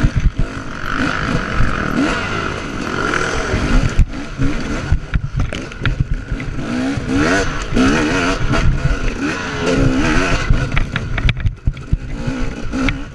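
Dirt bike engine revving up and down under load on a steep, rough hill climb, its pitch wavering with the throttle, over heavy low rumble and frequent knocks and rattles of the bike crossing ruts.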